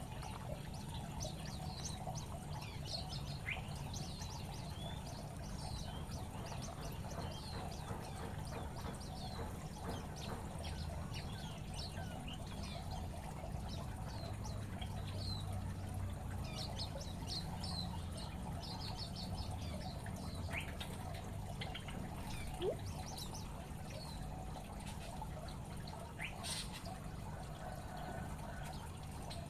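Zebra finches calling with many short, high chirps, scattered irregularly over a steady low background noise.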